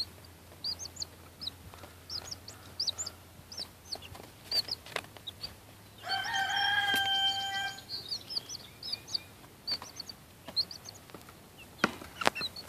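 Baby chick peeping over and over in short high chirps, with a few sharp clicks. About six seconds in, one of the young chickens gives a single long, even-pitched call lasting nearly two seconds.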